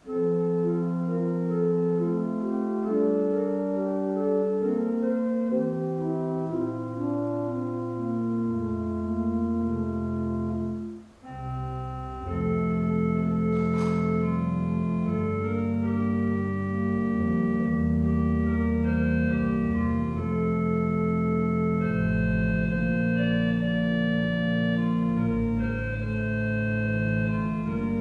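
Organ music playing slow, held chords that change every second or two, with a brief break about eleven seconds in, after which the chords come back fuller with deep bass notes.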